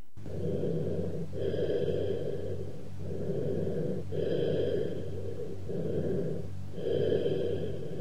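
Cavernous bronchial breath sounds heard through a stethoscope: low-pitched and hollow, three breath cycles, each a softer inspiration followed by a louder expiration. They are the sign of an underlying lung cavity with irregular walls, or of an open pneumothorax.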